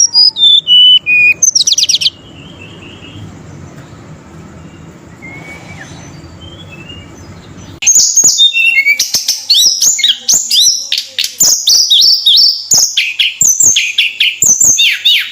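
Tledekan gunung (Sunda robin) singing loudly and continuously. It starts with a few clear whistles falling in pitch and a quick trill, pauses for several seconds with only faint notes, then from about halfway sings a dense run of rapid falling whistles mixed with sharp, clicky notes.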